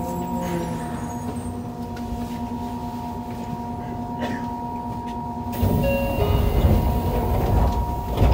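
Inside a Yokohama Municipal Subway 3000A-series car with Mitsubishi GTO-VVVF equipment: a steady electrical hum of several held tones. About five and a half seconds in, a louder low rumble with knocks joins it.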